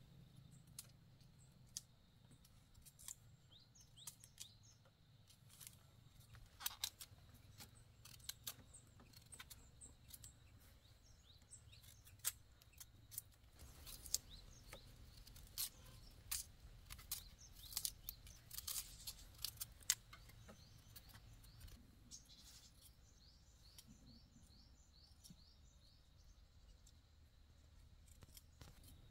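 Faint, scattered sharp clicks and snips, thickest in the middle, with small birds chirping faintly in the background near the end.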